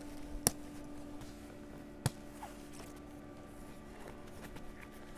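Two sharp clicks about a second and a half apart, as clips or buckles are released on a motorcycle's insulated transport bag, over a steady low hum.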